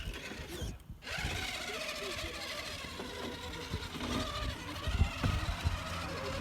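Electric motor and geared drivetrain of an RC rock crawler whining as the throttle is worked over rocks, its pitch wavering, with a few low thumps about five seconds in.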